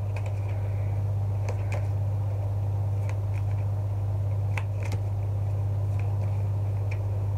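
Tarot cards being shuffled by hand, a scatter of faint soft clicks and snaps, over a steady low electrical hum.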